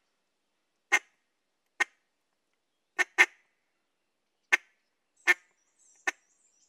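Single clucks blown on an Echo Timber duck call: seven short, sharp notes at uneven intervals with silence between them, two in quick succession near the middle. These single-note clucks are the building blocks of a feed call.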